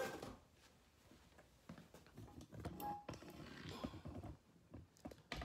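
Handling noise as the camera is picked up and moved closer: irregular knocks and bumps against the table with rustling, a brief squeak near the middle, and a last knock as it is set down near the end.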